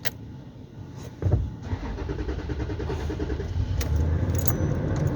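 Toyota FJ Cruiser's 1GR-FE V6 starting about a second in, on a newly replaced in-tank fuel pump, then running steadily.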